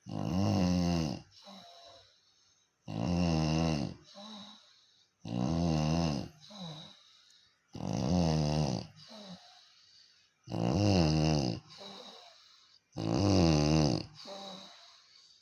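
Snoring in a steady rhythm: six snores about every two and a half seconds, each followed by a softer, shorter breath.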